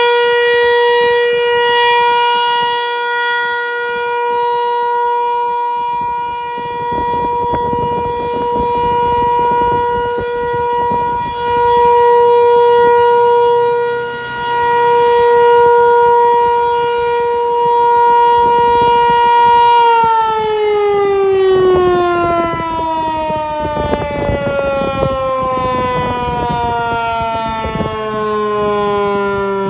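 Federal Signal 508 outdoor warning siren sounding a steady tone on its monthly test, the level swelling and fading in slow waves as the rotating siren head sweeps past. About twenty seconds in the tone shuts off and winds down, its pitch falling steadily.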